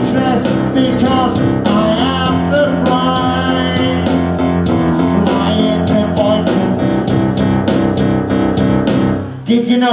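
Rock song played live through a PA: guitar-led backing with a steady drum beat about twice a second and a singer's voice over the microphone. The music drops out briefly near the end.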